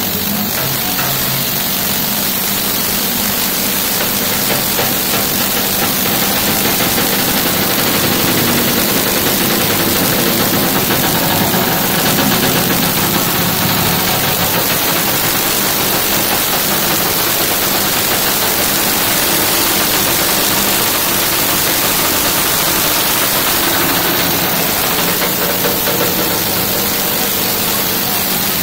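Loud, steady drone of a ship's running machinery, without let-up or clear rhythm.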